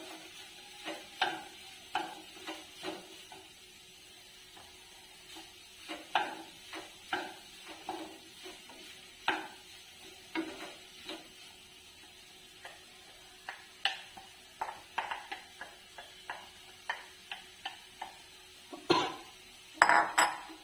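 Wooden spatula stirring and scraping chopped cauliflower in a nonstick kadai, in irregular short strokes, with a louder flurry of strokes near the end.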